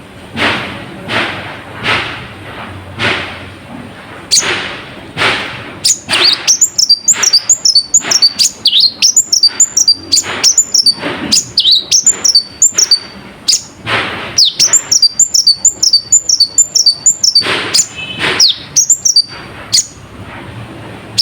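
A kolibri ninja sunbird singing a song laced with mimicked nightjar calls. For the first six seconds it gives harsh calls that sweep down, about one a second. After that it runs on into a fast, dense series of sharp, high looping notes.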